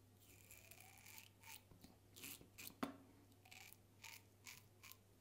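Faint scraping strokes of a Mühle Rocca XL double-edge safety razor with a Gillette 7 O'Clock Black blade cutting lathered stubble: one longer stroke near the start, then a run of quick short strokes, the sharpest just before the three-second mark.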